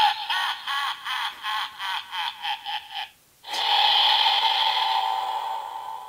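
The DX Evol Driver toy belt's electronic voice lets out a long villain's laugh through its small speaker, about ten 'ha' bursts over three seconds. After a brief pause it plays a sustained electronic tone that slowly fades.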